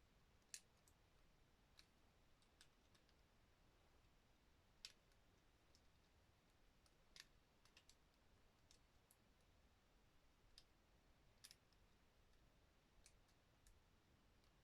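Faint, irregular clicks of hard plastic parts: a Transformers Studio Series dinosaur figure's joints and panels clicking as it is worked by hand through its transformation, with the sharpest clicks about half a second and five seconds in.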